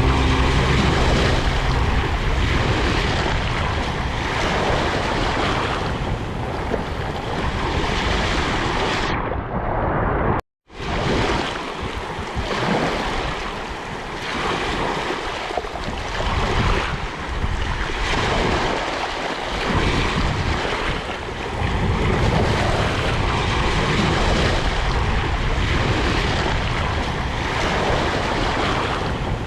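Sea waves washing in, a steady rushing surf noise that swells and eases slowly, with wind buffeting the microphone. The sound cuts out completely for a moment about ten seconds in, at an edit.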